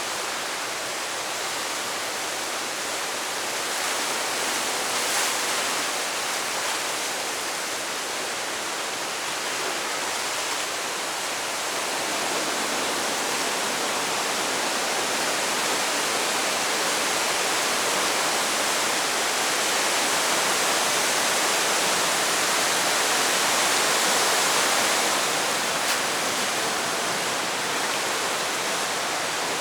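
Steady rush of falling water from a waterfall, growing slightly louder about halfway through.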